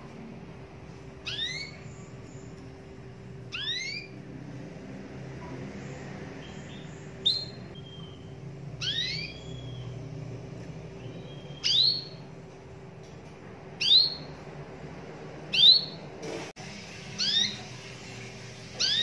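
Caged domestic canary giving short, rising chirped calls, one about every two seconds.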